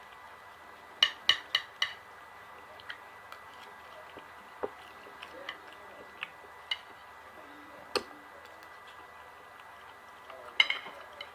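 Cutlery clinking against a plate while eating: a quick run of four sharp clicks about a second in, scattered single clicks after, and another cluster near the end.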